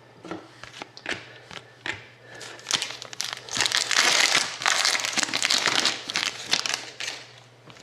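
Plastic trading-card packaging crinkling as it is handled, with scattered light clicks, densest and loudest from about three seconds in until shortly before the end.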